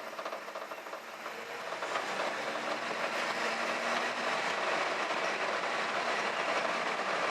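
1964 Ford F100's engine running as the old truck is driven in first gear, with a steady mechanical clatter that grows louder about two seconds in.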